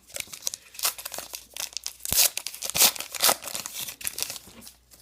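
A baseball card pack's wrapper being torn open and crinkled by hand: a run of sharp crackles and rustles, the loudest a little past the middle.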